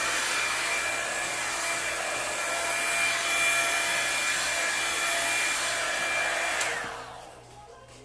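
Revlon One-Step paddle hair dryer-brush running on its low setting: a steady blowing rush with a whine. About a second before the end it is switched off, and the whine falls away as the fan spins down.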